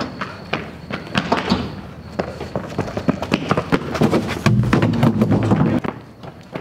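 Quick running footsteps slapping on concrete paving, irregular knocks several times a second. A louder low rumble lasts about a second and a half near the end.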